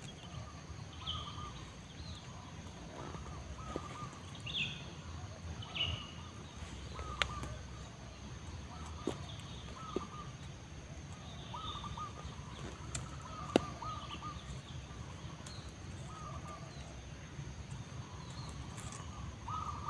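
Wild birds chirping and calling over and over in the surrounding trees, over a faint steady high hiss, with a few sharp clicks from handling, the loudest about two-thirds of the way through.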